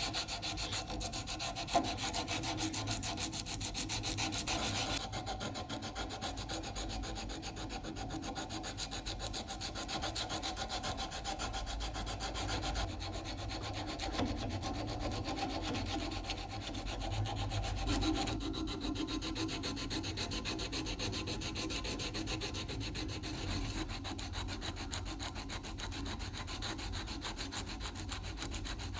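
Continuous fast rubbing strokes of hand abrasive work, filing or sanding, drawn back and forth over the workpiece. The tone of the strokes changes about five seconds in and again a little past halfway.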